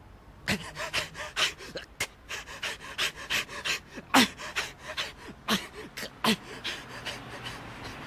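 Men panting and gasping in short breaths amid a quick, irregular run of sharp hits or scuffles, about two or three a second, some with a short grunt.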